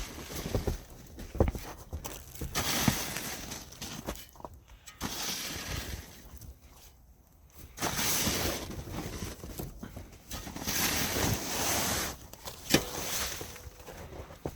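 Bursts of rustling and scraping, a second or two each, with a few sharp knocks between: a snow-laden tent being handled and cleared of snow.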